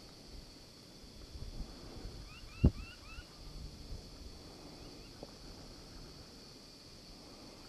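A young wolf pinned under a dominant adult male gives a quick run of four high, squealing yelps about two and a half seconds in, then a couple of fainter ones shortly after: submissive calls under dominance aggression. A single sharp knock, the loudest sound, lands in the middle of the yelps.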